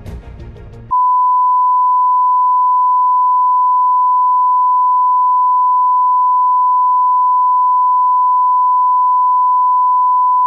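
A steady 1 kHz line-up test tone, one continuous pure beep at constant level, starting about a second in: the reference signal broadcast with colour bars. Before it, for that first second, music with a ticking beat cuts off.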